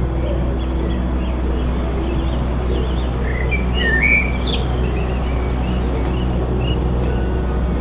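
Small birds chirping, with a cluster of short rising and falling calls a few seconds in, over a steady low rumble.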